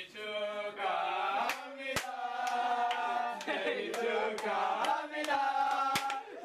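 A group of young men singing a birthday song together in chorus, with hand claps keeping time about twice a second.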